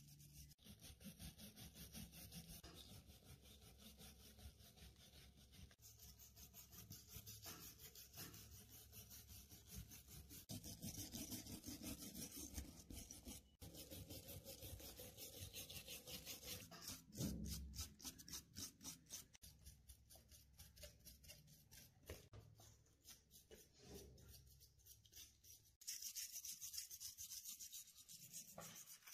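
Small steel wire brush scrubbing rapidly back and forth over rusted pistol steel, a quiet scratchy rasp of quick short strokes with a brief pause about halfway through, as it loosens surface rust.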